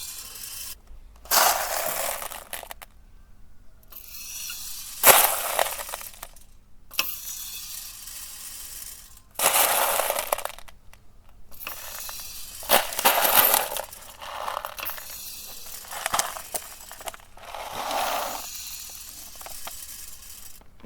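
Plastic airsoft BBs pouring and rattling against metal in repeated bursts, each a second or two long, with short pauses between them.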